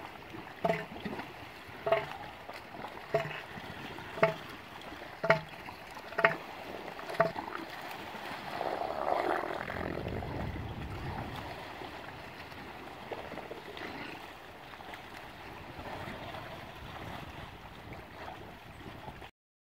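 Male northern elephant seals' pulsed threat call: a string of about seven deep, hard pulses, roughly one a second, over the first seven seconds. A louder rough noise follows about nine seconds in, over a steady wash of wind and water.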